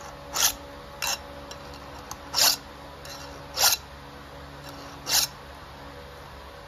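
Chainsaw file rasping across a chainsaw chain's cutter tooth in five short strokes, spaced unevenly about a second or so apart.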